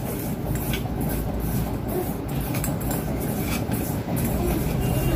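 A steady low rumble runs underneath soft, faint knocks and rubbing as boiled eggs are turned by hand in a steel bowl to coat them with salt and turmeric.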